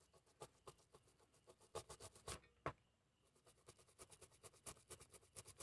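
A brush scrubbing a smartphone circuit board with thinner, cleaning it after an IC has been soldered on. The strokes are short, faint and scratchy. They come scattered at first, then as a quicker run of about five or six a second in the second half.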